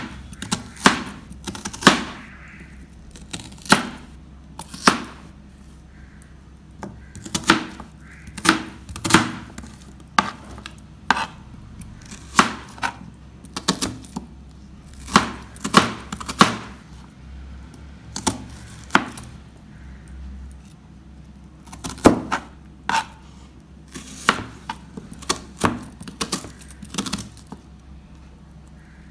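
Kitchen knife chopping red onions into large chunks on a plastic cutting board: irregular sharp knocks of the blade on the board, about one to two a second, some in quick pairs.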